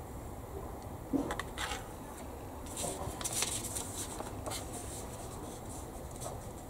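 Rustling of a paper instruction sheet as it is picked up and handled, after a couple of light knocks about a second in as a plastic kit part is set down on the bench.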